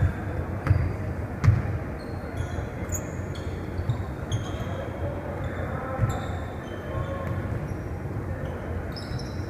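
Basketball being dribbled on a hardwood gym floor: a few heavy bounces in the first couple of seconds, then sneakers squeaking briefly and often on the court as play moves.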